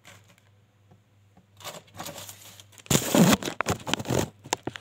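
Rustling, scraping handling noise from a phone camera being positioned and adjusted, loudest in the second half, with a few sharp clicks near the end.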